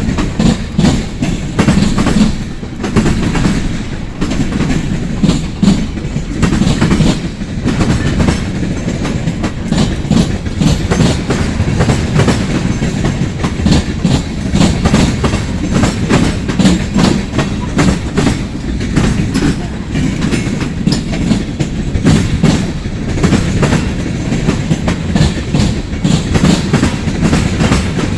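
Freight train cars rolling past, their steel wheels clattering and knocking on the rails over a steady low rumble.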